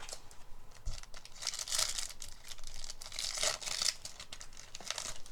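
Foil wrapper of a Yu-Gi-Oh booster pack crinkling and being torn open, in two main bursts of tearing and rustling about two seconds in and again about three to four seconds in, with small crackles between.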